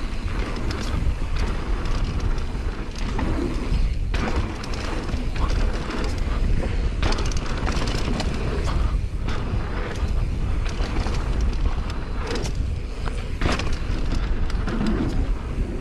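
Mountain bike riding fast down a dirt jump trail: wind rumbling on the bike- or helmet-mounted action camera's microphone over the hiss of tyres on dirt, with occasional knocks and rattles from the bike over the bumps.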